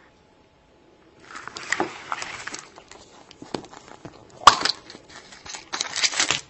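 A plastic surprise egg and its plastic seal being handled and opened: crinkling and crackling plastic starting about a second in, with one sharp click about halfway.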